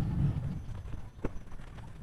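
Low wind rumble on the microphone with a few soft knocks and one sharper click a little past halfway.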